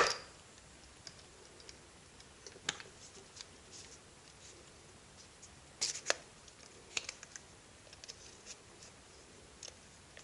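Hand tools and small parts being handled on a workbench during the teardown of a cordless impact driver: scattered light clicks and taps, with one sharp knock right at the start and a small cluster of clicks about six seconds in.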